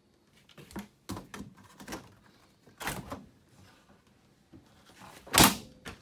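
Under-counter refrigerator drawer being pulled open and handled, a series of clicks and knocks, then pushed shut with a loud thud near the end.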